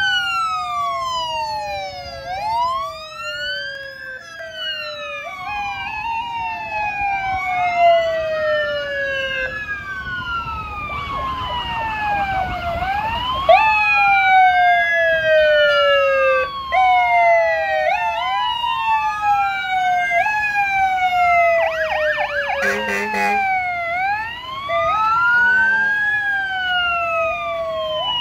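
Several emergency-vehicle sirens wailing at once, their pitches rising and falling out of step with one another. About three-quarters of the way through, one switches briefly to a rapid yelp.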